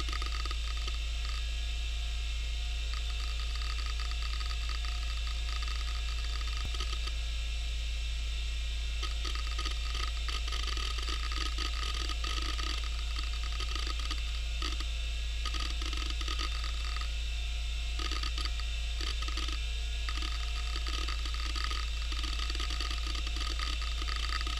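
Western Digital Caviar 2340 IDE hard drive running: a steady spindle hum and whine, with irregular head-seek chatter as it reads through ScanDisk and the Windows 95 boot.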